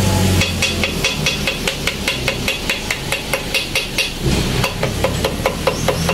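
Quick, even light metal tapping, about five taps a second, each with a short ringing tone: a small steel tool tapping a sheet of paper against the edge of a small gasoline engine's cast cylinder block to cut out a gasket.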